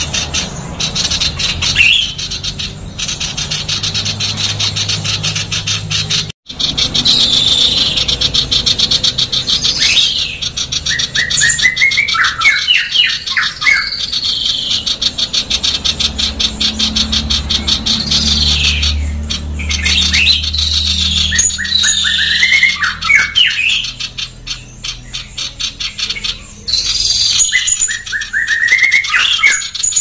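Female common iora calling in a fast, tightly packed, harsh chatter, with rising and falling whistled phrases rolling in every few seconds. A brief dropout about six seconds in.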